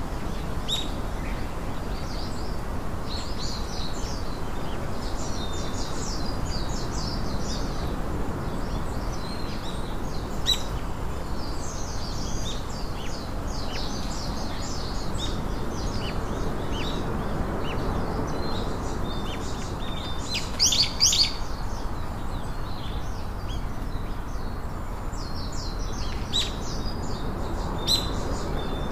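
Small songbirds chirping and singing, many short high calls scattered throughout with a louder flurry about twenty seconds in, over a steady background hiss.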